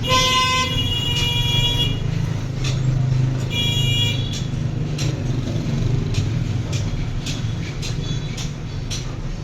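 A vehicle horn sounds twice, a long blast of about two seconds and then a shorter one, over a steady low rumble of traffic, with scattered clicks and knocks throughout.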